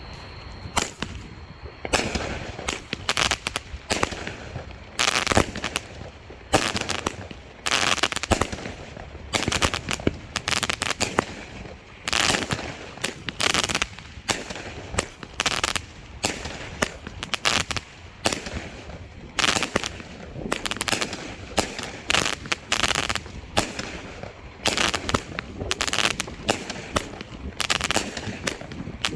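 A 25-shot, 200-gram Black Thunder fireworks cake by Big Fireworks firing its shots one after another, with sharp bangs coming roughly once a second.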